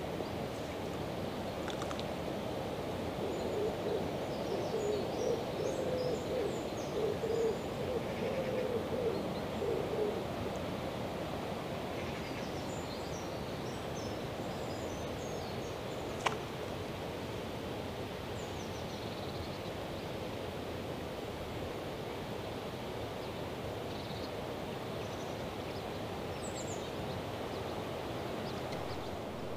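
Steady rush of fast-flowing river water, with a bird's low hooting call repeated several times in the first third and small birds chirping faintly and high. A single sharp click sounds about halfway through.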